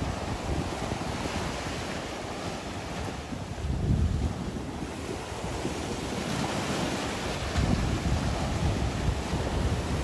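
Wind buffeting the microphone over the wash of sea surf, with stronger gusts about four and eight seconds in.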